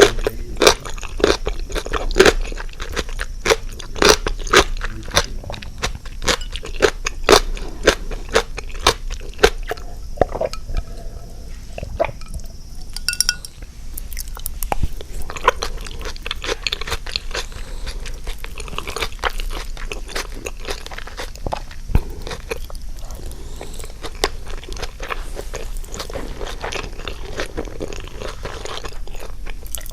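Close-miked eating: crisp crunching and chewing of pickled cucumber, with dense crunches over the first ten seconds, a short lull, then slower chewing.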